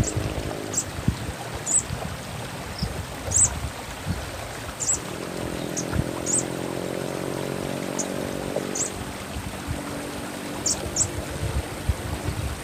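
Olive-backed sunbird (sogok ontong) giving short, thin, high chirps, about ten scattered irregularly, over steadily running water. A low hum swells and fades in the middle.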